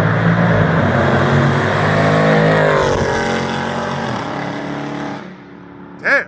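Dodge 392 HEMI V8 at wide-open throttle, passing close by with a loud exhaust note; its pitch drops about three seconds in as it goes past, and it fades away down the road. A short yelp near the end.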